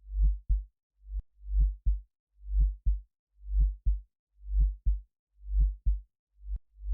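Synthesized heartbeat: a deep double thump, lub-dub, about once a second with silence between beats. Twice, a shorter single thump comes just before a beat.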